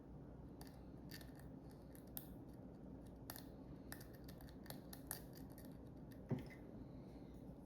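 Faint scattered small clicks and ticks of hand work with small tools on the knee speed controller's wiring and terminals, with one louder knock about six seconds in.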